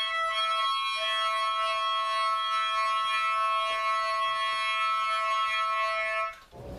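Trumpet playing one long, high held note, faltering briefly about a second in, then cutting off near the end.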